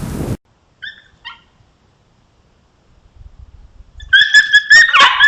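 Coyotes yelping during a territorial fight between coyotes from different packs. Two short high yelps come about a second in, then from about four seconds a loud run of rapid, high-pitched yips and yelps.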